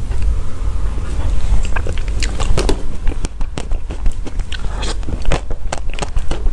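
Close-miked biting and chewing of a soft mousse-cake dessert: irregular wet, crackly mouth clicks over a steady low hum.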